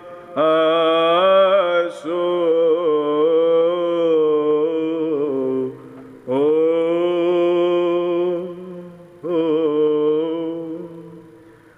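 A solo male voice sings Byzantine chant in long melismatic phrases of held, wavering notes. There are three phrases, with breaks for breath about half a second in, around six seconds and around nine seconds. The last phrase fades away near the end.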